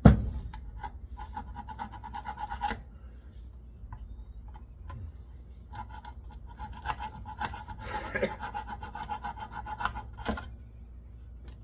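Metal parts of a dismantled bench grinder being handled: a sharp knock at the start, then clicks and stretches of metal scraping and rubbing against metal with a faint ringing, and another knock near the end.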